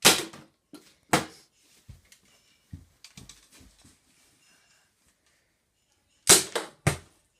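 Toy Nerf blaster firing and foam darts striking a plastic bottle: two sharp pops about a second apart, a few light knocks as the bottle tumbles, then after a pause two more sharp pops half a second apart.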